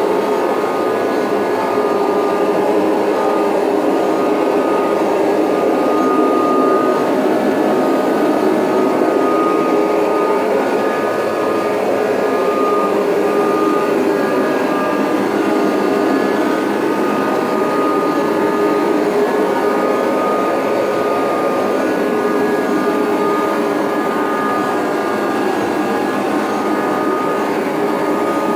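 Kirby Heritage 2 upright vacuum cleaner running steadily, fitted with its Rug Renovator carpet-shampoo attachment, with a constant motor whine over an even rush of air.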